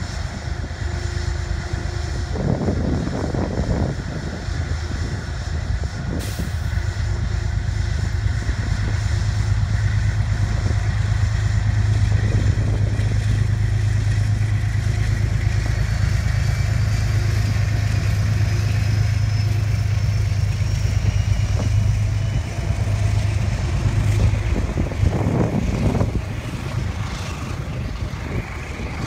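Metro-North GE P32AC-DM diesel locomotive passing with its engine working hard, a deep steady drone that builds over the first dozen seconds, with a faint rising whine above it, before the coaches roll by.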